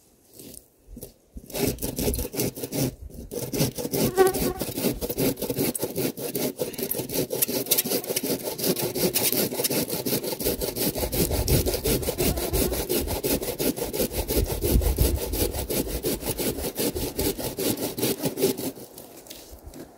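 Silky Gomtaro Japanese pull saw cutting through a dry pine log with rapid, steady strokes. It starts about a second and a half in, pauses briefly, then runs on and stops shortly before the end.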